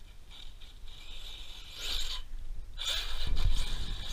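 High electric-motor whine that rises and falls in pitch and swells twice, with a rumble of wind on the microphone late on.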